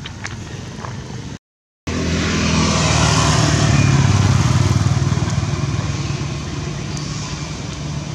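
A motor vehicle passing by: after a brief dropout about a second and a half in, an engine hum swells to a peak around the middle and then slowly fades.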